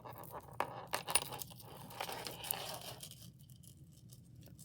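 Light clicks and clinks of a double-strand necklace being handled, its chain and beads tapping together, over a soft rustle; a few sharp clicks come in the first couple of seconds.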